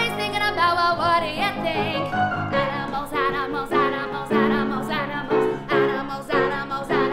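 Musical-theatre song: a singer holding notes with a wide vibrato over an instrumental accompaniment, with a steady bouncy beat of chords coming in about two and a half seconds in.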